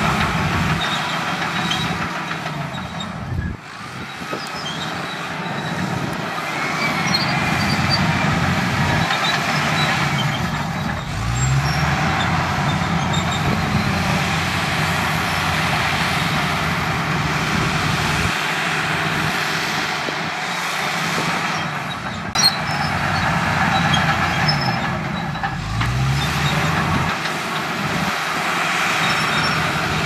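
Komatsu D65PX crawler bulldozer's diesel engine running under load as it pushes soil. The engine revs up twice, about a third of the way in and again near the end, and a single sharp knock sounds about three quarters of the way through.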